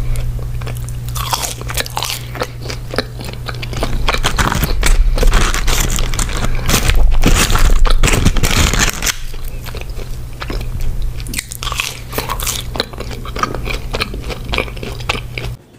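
Close-miked eating: crunchy bites into fried food followed by chewing, loudest in the middle, over a steady low hum. It cuts off abruptly at the end.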